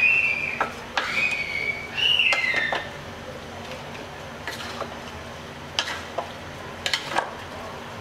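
Wooden spatula stirring chunks of raw jackfruit in a large metal pot, with scattered sharp knocks and scrapes against the pot. A few high squealing notes sound in the first three seconds.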